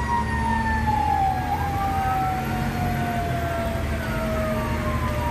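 Fire engine sirens heard from inside the cab while responding: one siren tone falls slowly and steadily in pitch throughout, while a second siren sweeps down and back up twice. The truck's engine runs underneath.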